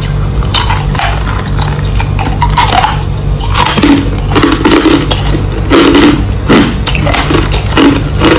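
Crushed clear ice being chewed close to the microphone: a steady run of loud crunches, about two a second, over a steady low hum.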